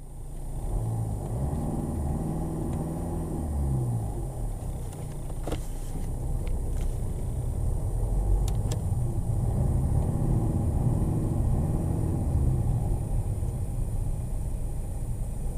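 Mercedes CLA 220 CDI's 2.1-litre four-cylinder diesel running near idle, heard from inside the cabin while the car rolls at walking pace. Its low hum rises and falls a little in pitch, with a few light clicks midway.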